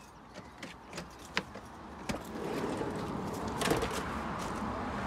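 Sliding side door of a van unlatching with a few sharp clicks, then rolling open along its track, with a louder knock partway through.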